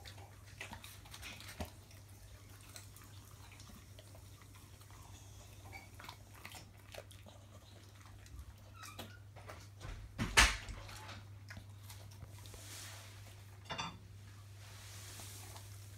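A dog eating sausage off a mat: soft chewing, licking and lip-smacking with scattered small clicks. One louder sharp knock comes about ten seconds in, and a short rattling sound near the end, over a steady low hum.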